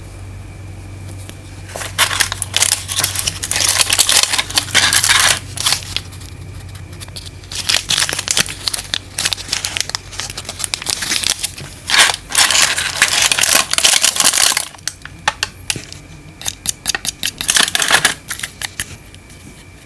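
Packaging crinkling and tearing in four bursts of a few seconds each, with a faint steady low hum underneath.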